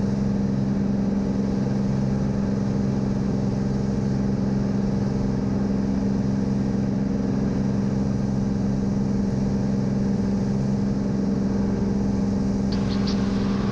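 Cirrus SR22's piston engine and propeller droning steadily at climb power, heard inside the cabin.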